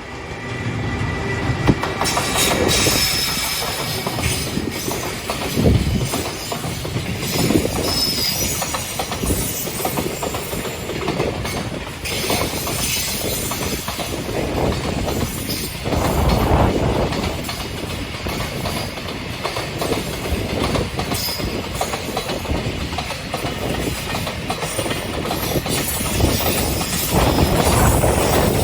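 Freight train passing at speed: wagons rolling by with continuous wheel-on-rail noise and a steady run of clacks from wheels over rail joints. It swells louder about halfway through and again near the end.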